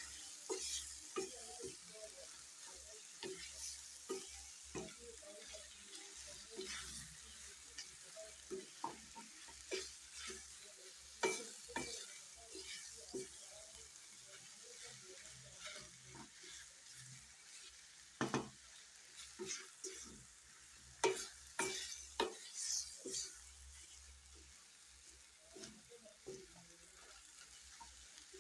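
Minced meat and diced potatoes frying in a stainless steel pan with a steady sizzle, while a wooden spoon stirs the mixture, scraping and knocking irregularly against the pan.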